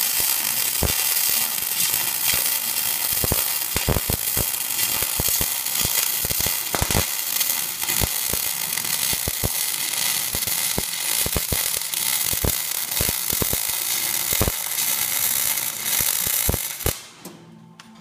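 MIG welding arc from a Millermatic 212 Auto-Set wire-feed welder on a steel frame: a steady loud crackling sizzle with irregular sharp spatter pops, stopping suddenly about a second before the end as the trigger is released.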